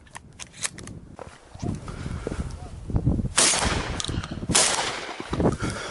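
Two shotgun shots about a second apart, with low wind and handling rumble on the microphone between them.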